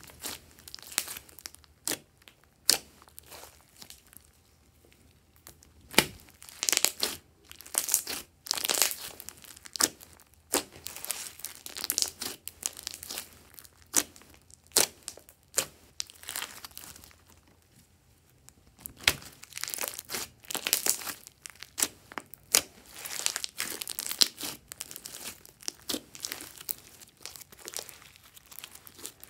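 Thick glossy slime squeezed, pressed and stretched by hand: sticky crackling and sharp pops in irregular bursts, with short quiet pauses.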